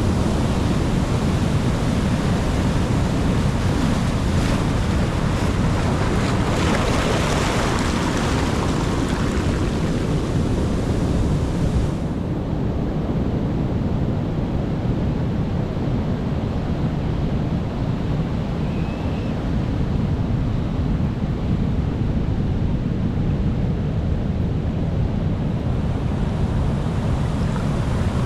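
Ocean surf: waves breaking and washing onto the shore as a steady rumbling hiss, with a louder wash about seven seconds in. About twelve seconds in, the high hiss drops away suddenly, leaving a duller surf rumble.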